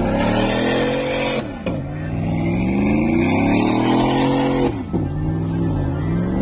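Pickup truck engine revving hard during a burnout, the rear tyres spinning in smoke. The pitch climbs in long runs, drops sharply about a second and a half in and again near the end, and climbs again each time.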